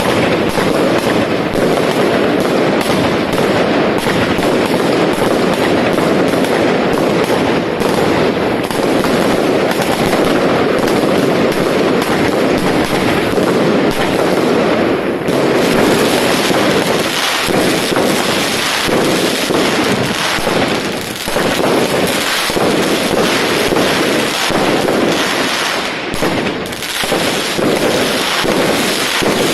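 Consumer fireworks, a firework battery firing in a dense, continuous barrage of bangs and crackle. About halfway through it thins out into more separate shots.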